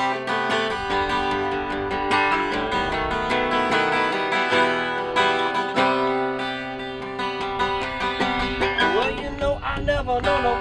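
Two acoustic guitars playing an instrumental passage: rhythmic strummed chords with picked notes ringing over them. A wavering melody line joins near the end.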